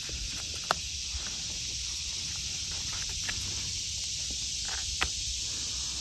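A steady high hiss of woodland background sound. Over it come a few sharp clicks and snaps from a knife cutting golden oyster mushrooms off a log: one about a second in, one past three seconds and one at five seconds.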